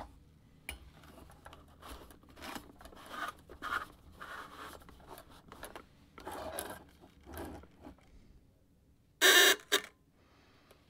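Metal handling sounds from a 1950s tin-can Electric Jack Straws toy: the perforated tin lid clinks and scrapes as it is fitted onto the can. About nine seconds in comes a short harsh buzz, the loudest sound, with a brief second blip, as the wired probe is brought to the holes.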